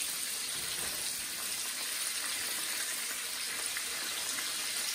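Venison steaks sizzling in hot oil in a frying pan: a steady frying hiss.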